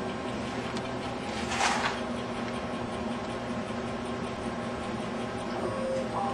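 Original Superior stepper motors of a late-1970s Bridgeport Series 1 CNC milling machine driving the axes during a homing run: a steady electrical hum with a brief hiss about a second and a half in, and a steady whine that starts near the end.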